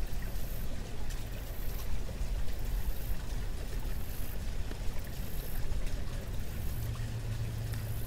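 Steady low rumbling noise with a faint hiss over it; a faint low hum comes in near the end.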